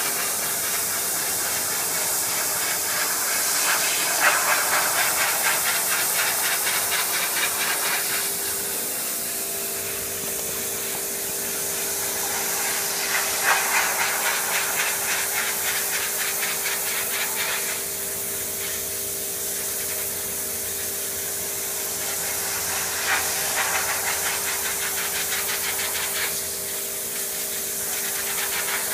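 Pressure washer jet blasting a weathered wooden lattice fence to strip it before refinishing: a steady loud hiss of high-pressure water over the machine's steady hum, swelling louder a few times as the spray works the wood.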